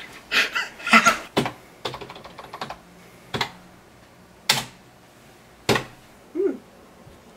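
Computer keyboard being typed on slowly: a few hard single keystrokes about a second apart, after a brief voice sound at the start.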